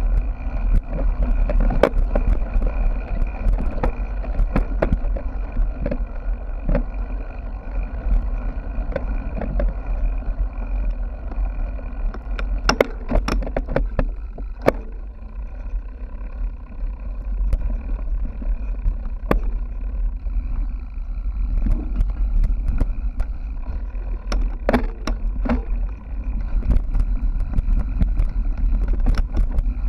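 Bicycle ridden over rough marathon-course ground, heard from a GoPro riding along: a steady low rumble of wind and vibration with frequent short rattles and knocks from bumps, in clusters about halfway through and again near the end.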